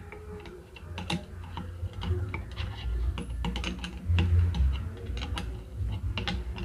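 Irregular light clicks and taps of a spanner and small metal engine parts being handled, over a low rumble.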